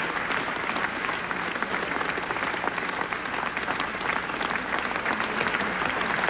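A large hall audience of several hundred applauding steadily in a standing ovation, the dense clapping of many hands.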